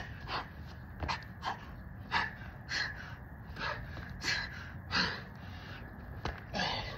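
A man breathing hard in repeated loud gasps, about one every half second to second, from the exertion of doing burpees, with a sharp tap near the end.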